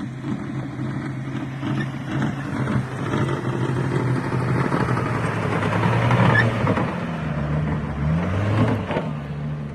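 Off-road vehicle engine running under load, with a rough rushing noise that swells through the middle; the revs rise and fall a couple of times near the end.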